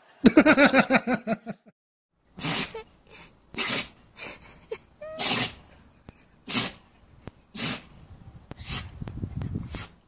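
A small curly-coated dog sneezing again and again, short sharp sneezes about one a second, starting about two seconds in. Before them comes a brief pulsing voice that cuts off suddenly.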